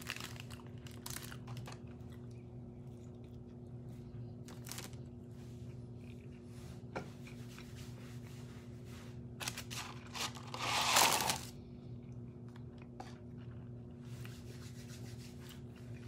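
Close-up eating and handling of fast-food packaging: scattered small crunches and clicks, with one loud rustle of paper packaging lasting about a second, about eleven seconds in. A steady low electrical hum runs underneath.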